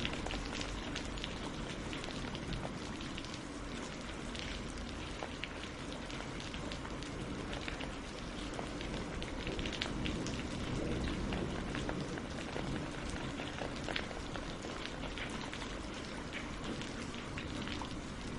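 Steady rain falling on tree leaves and on a lake's surface, a constant hiss with many separate drop patters.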